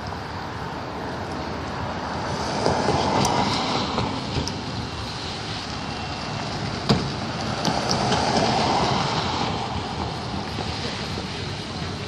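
Distant roar of an Atlas V rocket launch heard from about 2.6 miles away: a rough, rumbling noise that swells twice, with a few sharp crackles, the loudest about seven seconds in.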